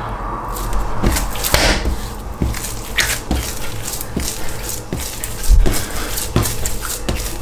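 Sticky, high-hydration (75%) pizza dough being kneaded by hand, folded open and closed against the counter: repeated wet slaps and squelches, roughly two a second, starting about a second in. The gluten is only just starting to develop.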